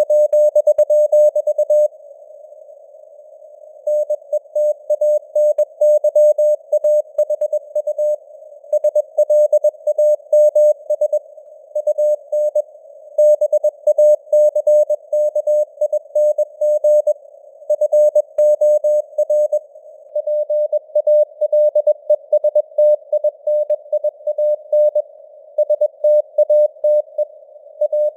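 Morse code (CW) at 21 words per minute: one steady mid-pitched tone keyed on and off in dots and dashes, with short pauses between words. A narrow band of hiss around the tone, simulated radio-receiver noise, fills the gaps.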